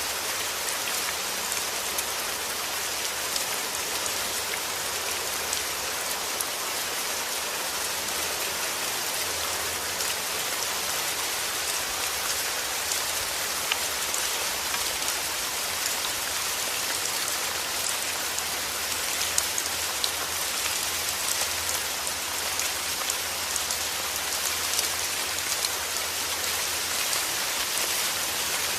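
Steady heavy rain falling, a dense even hiss with many individual drops ticking sharply on a surface.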